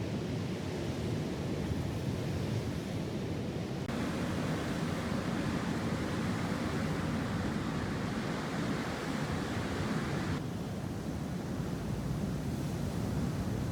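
Steady wash of sea waves and wind at the shore, with a rushing noise that changes abruptly twice, about four and ten seconds in.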